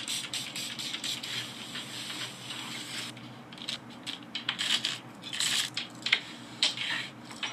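Close-up packaging sounds: small plastic bags and paper rustling, with sharp clicks of bracelets being handled and set down on a countertop, ASMR-style.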